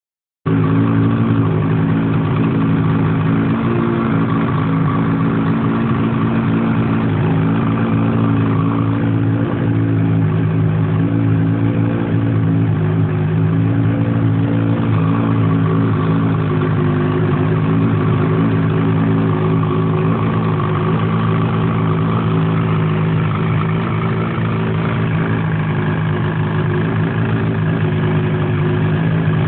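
800 E-TEC two-stroke engine idling steadily while cold, with a noise the owner suspects could be piston slap.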